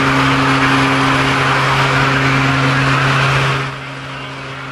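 Jump plane's propeller engine droning steadily, with a loud rushing noise over it that drops away sharply about three and a half seconds in.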